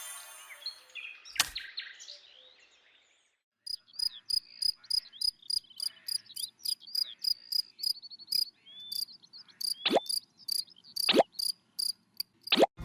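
Insect chirping, crickets by its sound: short high pulses in a steady rhythm of about four a second, starting a few seconds in. Three quick plops falling in pitch come in the last few seconds.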